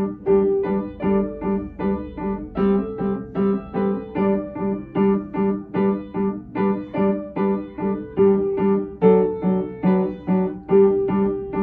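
Keyboard playing a simple melody in single notes at an even, lively pace, about two to three notes a second.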